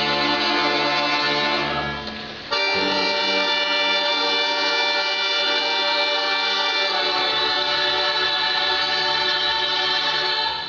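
Russian folk choir singing with instrumental accompaniment: a phrase ends about two seconds in, then the choir holds one long final chord for about eight seconds before cutting off.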